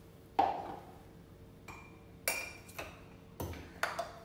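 Kitchen utensils and containers clinking and knocking on a counter: a handful of separate clinks, the first the loudest and one briefly ringing, as spices are handled.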